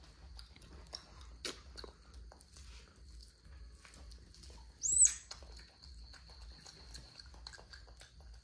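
A young monkey chewing corn kernels off the cob, a run of small irregular clicks and crunches. About five seconds in, a short high squeak is the loudest sound.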